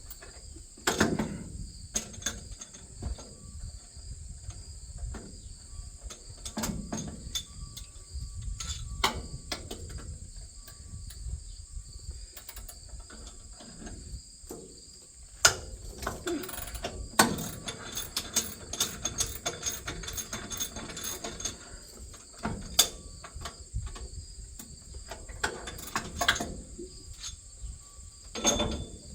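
Hand tools and metal parts clinking, clanking and clicking as a corn head is worked on, with a dense run of rapid clicks about two-thirds of the way through. Crickets chirp steadily behind.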